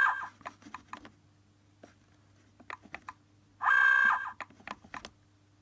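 Eleventh Doctor sonic screwdriver universal remote making its electronic buzzing sound effect: a brief burst right at the start and a second, steady buzz of about a second and a half in the second half. Light plastic clicks from handling the button come between the two.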